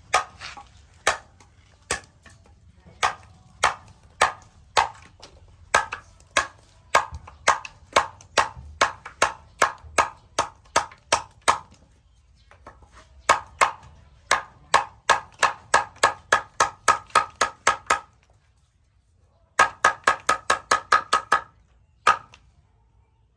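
A knife blade chopping again and again, each sharp strike ringing briefly. The strikes come at about two a second, then faster, then in a quick flurry near the end, with one last strike after a short pause.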